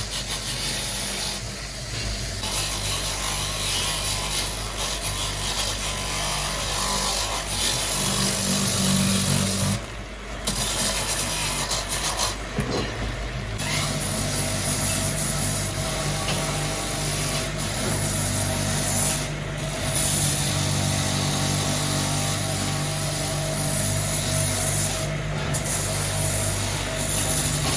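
A power tool running in long stretches over a steady engine-like hum, cutting out briefly about ten seconds in and again about thirteen seconds in.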